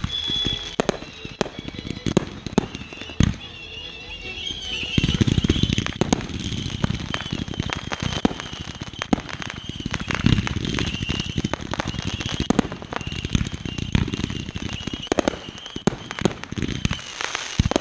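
Fireworks going off in a rapid run of bangs and crackles, thickening into a dense barrage about five seconds in. A high wavering whistle runs through the barrage.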